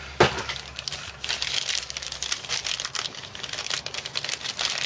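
Plastic packaging being crinkled and crackled by hand, with a sharp click just after the start.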